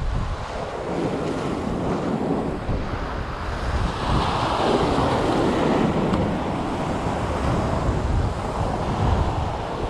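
Wind buffeting the microphone over waves washing against jetty rocks, a steady rushing noise that swells louder about four seconds in.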